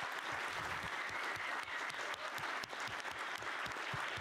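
An auditorium audience applauding steadily, many hands clapping together.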